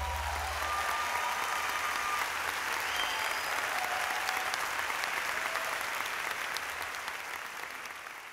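Concert audience applauding at the end of an orchestral performance, a few whistles rising above the clapping. The last low note of the orchestra dies away in the first second, and the applause fades out near the end.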